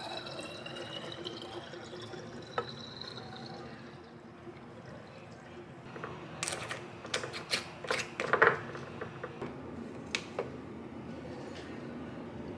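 Kombucha poured into a glass bottle, its tone rising steadily as the bottle fills and stopping about three and a half seconds in. Then comes a run of clinks and knocks of glassware being handled on the counter between about six and ten seconds, loudest about eight and a half seconds in.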